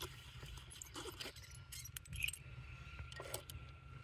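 Saw chain being pulled by hand along the guide bar through a clamp-on chainsaw sharpener jig: faint, scattered metallic clicks and light rattles of the chain links.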